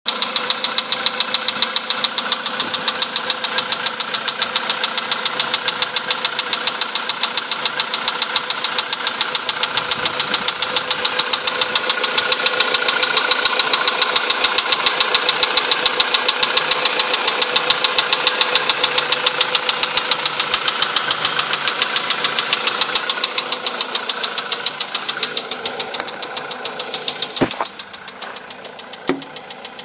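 Volkswagen Polo Sedan engine running cold, with a fast, even metallic knocking at idle: the engine knock that shows when the engine is cold. Near the end the knocking stops, and a couple of single clicks follow.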